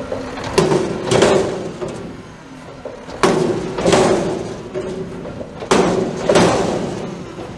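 Garbage truck emptying a trash cart, the cart banging against the hopper in three pairs of bangs, each pair about half a second apart, over the truck's running engine.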